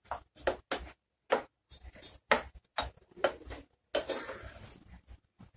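Slotted steel spatula scraping and knocking against a nonstick frying pan while stirring a thick squid masala: short irregular strokes about three a second, with a longer scrape about four seconds in.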